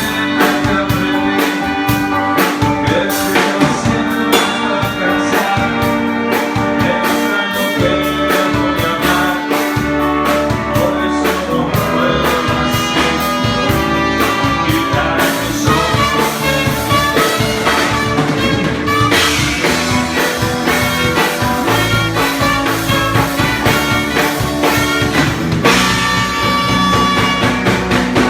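A live band playing at a sound check: drum kit keeping a steady beat under sustained instrumental parts, with no break in the playing.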